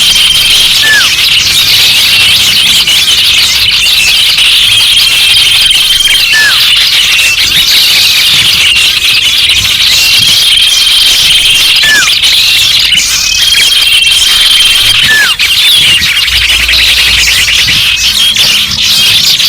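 Dense chorus of many songbirds chirping and trilling over one another, a layered mix of garden bird calls. A held high whistle recurs every few seconds, and a short falling note sounds about four times.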